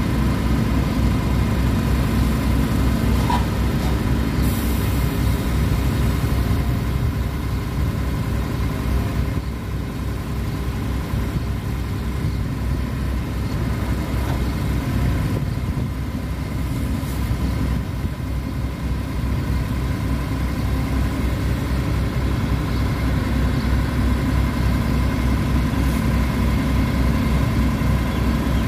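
Fuso truck's diesel engine running steadily at idle, powering the hydraulic boom crane as it hoists a date palm trunk, with a faint steady whine over the engine note.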